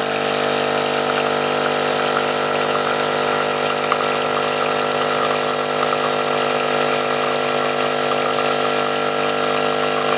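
De'Longhi Nespresso Gran Lattissima EN650 capsule machine brewing a coffee: its vibration pump runs with a steady buzz as it forces water through the capsule.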